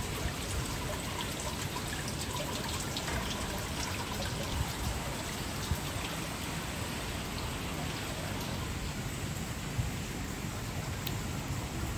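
Steady hiss of trickling, splashing water, with faint scattered drips and a low rumble underneath.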